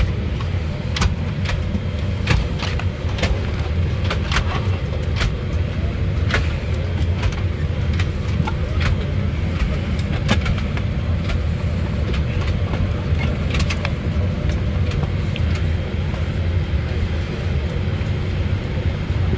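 Steady low rumble of a Boeing 787-8 airliner's cabin, with irregular clicks and rustles from the seat-back magazine and seat fittings being handled.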